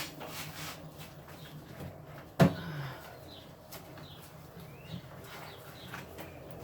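A single sharp knock about two and a half seconds in, with faint short bird chirps after it.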